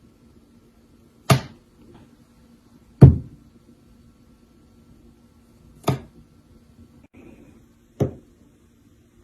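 Four sharp knocks at uneven intervals, each dying away quickly, over a faint steady hum.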